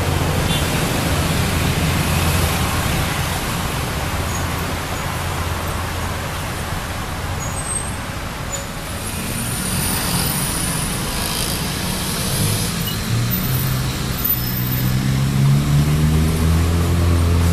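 Road traffic with vehicle engines idling steadily. Near the end a diesel engine's note rises in pitch.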